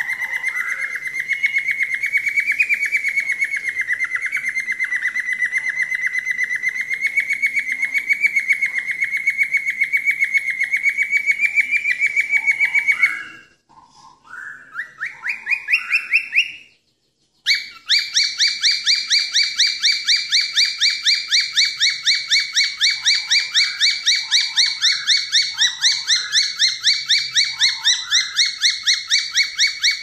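Cockatiel whistling a rapid, evenly pulsed trill at a steady high pitch. About thirteen seconds in it breaks into a few rising notes, stops briefly, then the fast trill resumes.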